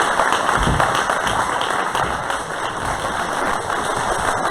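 Audience applauding, many hands clapping in a steady, even wash of sound.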